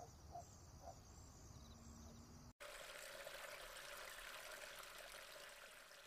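Faint outdoor ambience with a few short bird chirps. It cuts off abruptly about two and a half seconds in and is replaced by a steady, faint rushing hiss like running water, which slowly fades toward the end.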